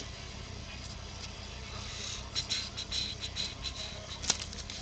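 Light handling sounds of trading cards and packs: soft rustling and irregular light clicks that pick up about two seconds in, with one sharper click near the end, over a low steady hum.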